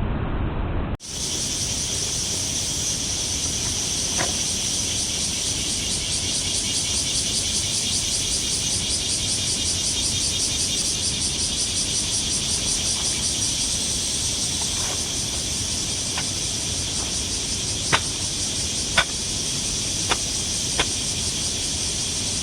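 Steady outdoor ambience with a high hiss, starting after a sudden cut about a second in. A few sharp ticks come through, one early and four in quick succession near the end.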